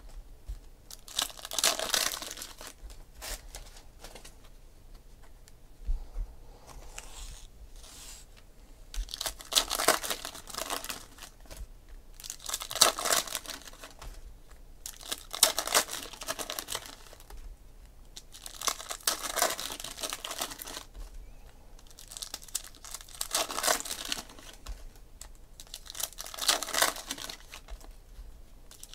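Trading-card packs being opened by hand: foil wrappers crinkling and tearing in bursts every few seconds, with cards shuffled in between.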